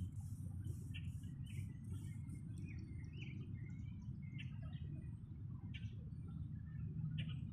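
Birds chirping outdoors: scattered short calls, with a run of high, evenly repeated pulses, about two to three a second, fading out a couple of seconds in. Under them runs a steady low rumble.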